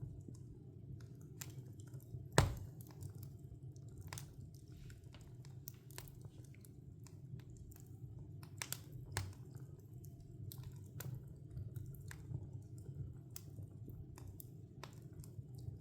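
Wood fire crackling: irregular small pops and snaps of burning logs over a steady low rumble, with one loud pop about two and a half seconds in.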